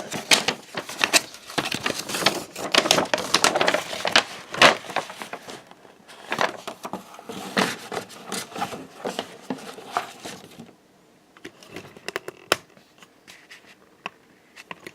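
Packaging crinkling and rustling as the contents of a trading-card collector's box are handled, busiest for the first six seconds, then thinning to scattered taps and light rustles.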